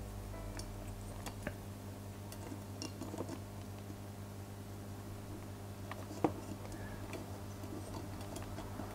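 Sparse small clicks and taps of model-kit parts being handled, over a steady low hum, with one sharper click about six seconds in.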